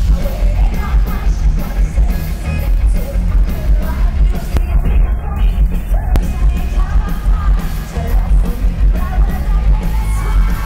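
Rock band playing loud live, with a female lead vocalist singing over heavy bass and drums, heard from the audience.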